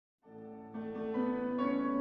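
Piano introduction to the song, starting about a quarter second in, with new notes added every half second or so and the sound growing louder.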